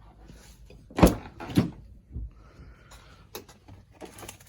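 Two sharp knocks about a second and a half second apart, then a few light clicks and rattles: small hard objects being handled and set down.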